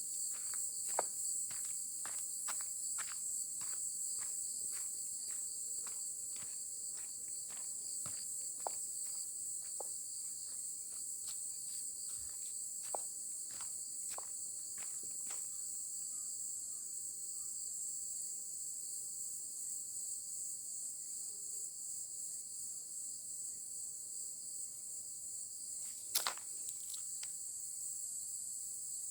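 Steady high-pitched chorus of insects in a forest, with footsteps crunching about twice a second through the first half. A brief cluster of sharper clicks comes near the end.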